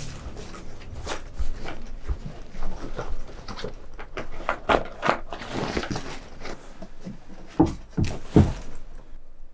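A bag being rummaged through by hand: irregular rustling, handling clicks and knocks, a longer rustle about six seconds in, and two dull thumps near the end.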